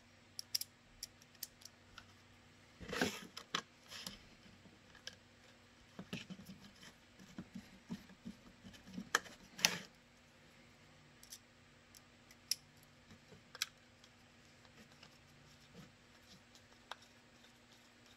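Small metal clicks and scrapes of a long hex key and set screws being handled and turned into plastic magazine holders on a workbench, with louder knocks about three and ten seconds in and sparser clicks after.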